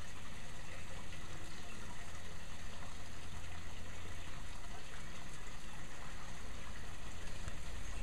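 Steady rushing background noise with a low rumble underneath; no duck calls or other distinct sounds stand out.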